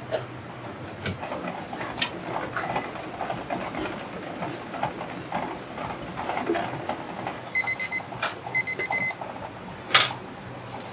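Electronic beeper going off in two short bursts of rapid beeps, a little over a second apart. Under it runs a steady clatter of cookware and utensils with sharp knocks, the loudest near the end.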